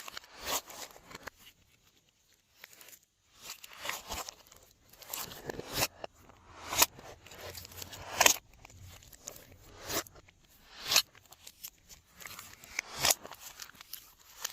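Glossy slime being worked by hand: irregular sticky pops and crackles, with a sharper pop every second or two.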